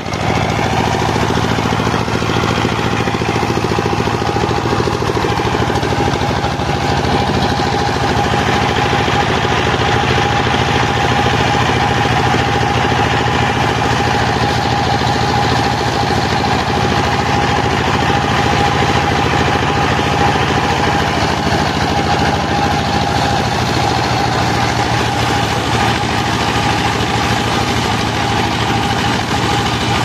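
Paddy thresher running, driven by a small single-cylinder diesel engine: a steady fast engine chug under a steady whine from the spinning threshing drum as rice stalks are fed in.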